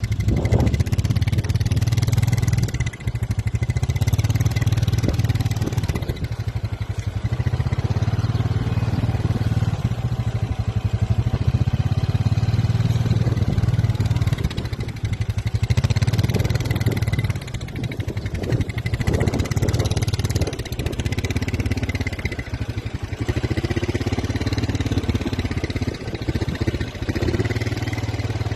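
A small engine running steadily for the whole stretch, its note dipping briefly now and then.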